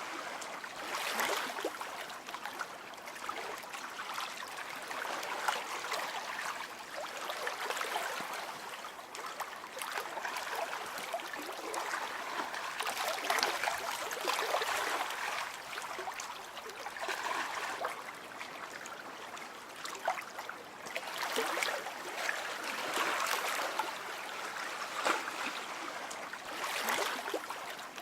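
A stream of water flowing and trickling, a continuous babbling with many small splashes that swells and eases every few seconds.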